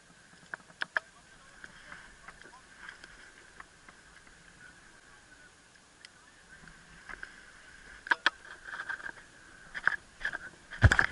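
Paraglider landing on grass: a faint steady high tone under scattered clicks and knocks of the harness and gear, which come thicker in the last few seconds as the pilot's feet touch down. A loud low rumble starts at the very end.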